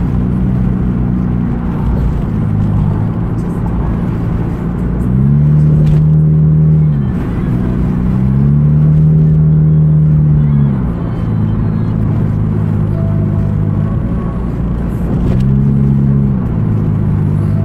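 Inside a moving car's cabin: steady engine and road noise while driving, with a low hum that swells louder three times.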